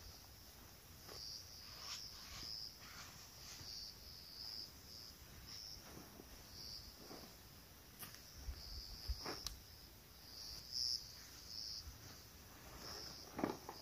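Insects chirping faintly in short, high-pitched bursts that come and go, with a few soft knocks and rustles from footsteps and a backpack being set down and handled.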